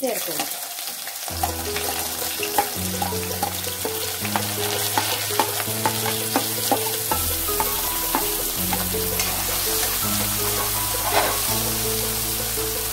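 Chopped vegetables sizzling in hot oil in a metal kadai as they are tipped in and stirred, with the steel spoon clicking against the pan now and then. Background music with held chords comes in about a second in.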